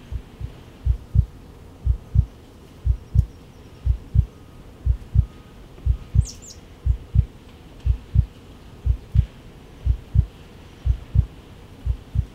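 A heartbeat pulse: pairs of low thumps, lub-dub, about one pair a second at an even pace. A brief high chirp sounds once about six seconds in.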